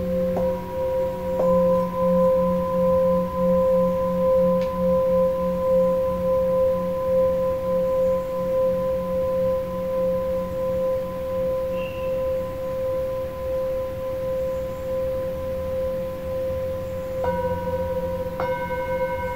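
Himalayan singing bowls struck with a mallet, ringing on in long overlapping tones, with a low hum that wavers about twice a second beneath the steady higher tones. Fresh strikes about a second in, and more bowls struck near the end, add new tones on top.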